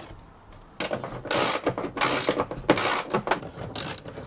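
Ratchet wrench clicking in repeated short strokes, about one every half second after a quiet first second, tightening nuts coated with thread lock.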